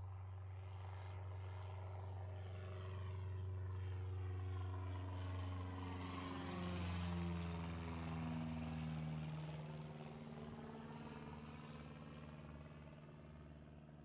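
Single-engine high-wing light airplane's propeller and engine droning as it climbs out and passes directly overhead. The pitch drops as it goes over, about seven seconds in, and the sound then fades as it flies away.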